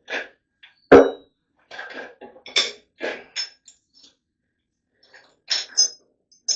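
Metal engine parts and tools clanking as they are handled and set down during an engine teardown: one sharp metallic clank about a second in that rings briefly, then a string of lighter knocks and clinks.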